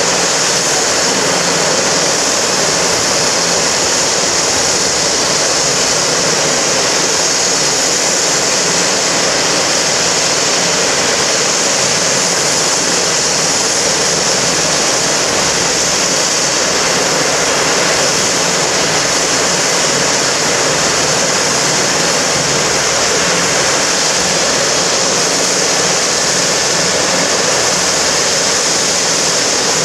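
Eurocopter EC135 helicopter running on the ground with its turbines going and its rotor turning: a loud, steady high whine and rush of air that does not change.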